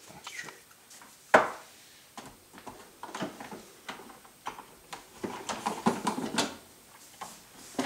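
Plastic food-dehydrator trays knocking and scraping as a loaded tray is slid into the dehydrator's rack, with one sharp knock about a second and a half in, then a run of clicks and scrapes.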